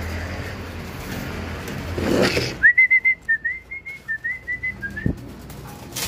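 A person whistling a quick run of short, high, slightly wavering notes about halfway through, the kind of whistle a fancier uses to call racing pigeons down into the loft. Pigeons are heard in the loft before it, with a soft knock near the end.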